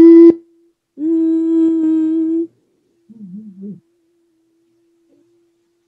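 Humming to match a reference pitch: a short hummed note, then the same steady note held for about a second and a half, then a lower, wavering hum that misses the pitch while a faint, thin steady tone holds the first note.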